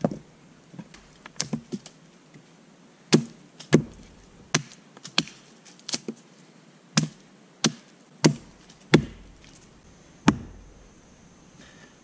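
Hatchet splitting thin pieces of wood against a log: a series of sharp wooden knocks, about a dozen, unevenly spaced, the loudest coming near the end.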